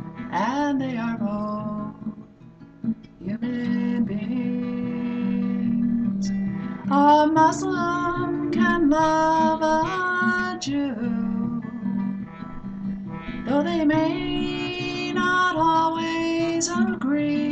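A woman singing while strumming an acoustic guitar, with long held sung notes and a short lull about two seconds in.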